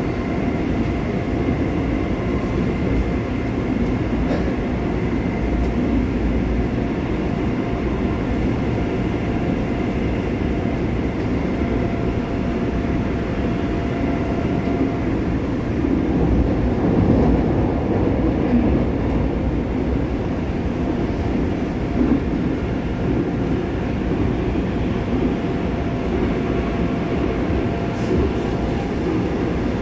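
Seoul Metro Line 9 subway train heard from inside the car, running through a tunnel: a steady rumble of wheels and running gear, with a faint steady whine above it.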